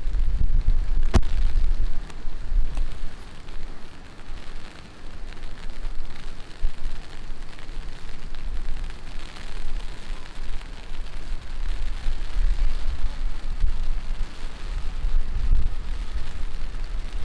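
Heavy rain falling steadily, over a deep, uneven rumble. There is a sharp click about a second in.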